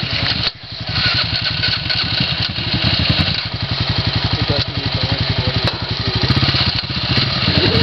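ATV engine running at low revs with a steady, rhythmic putter, dipping briefly about half a second in.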